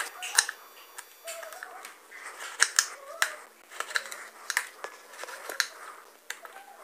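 Knife cutting through a green brinjal (eggplant) and tapping on a wooden chopping board: a series of sharp, irregularly spaced clicks and knocks.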